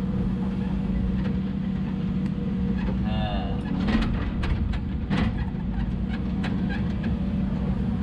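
Hidromek 140 excavator's diesel engine running steadily under work, with a brief wavering squeal about three seconds in and a run of sharp knocks and clanks through the middle.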